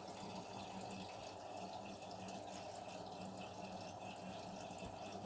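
Hoover washing machine filling with water at the start of a wash cycle: a faint, steady rush of water running in.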